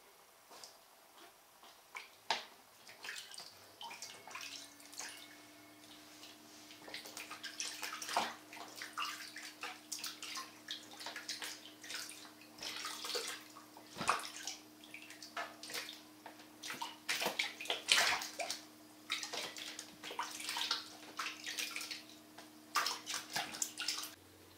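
Water splashing and sloshing in a small plastic tub as a ferret is washed by hand, in irregular splashes that come thick and fast for most of the time.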